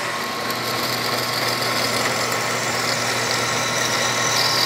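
Milling machine spindle running steadily with a drill chuck, spot-drilling bolt holes in a metal hub-adapter plate.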